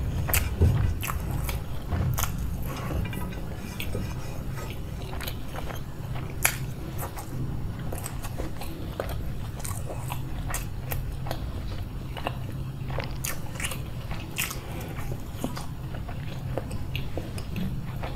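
Close-miked eating: wet chewing of rice with irregular crunchy bites, typical of raw onion or green chili being bitten. A steady low hum runs underneath.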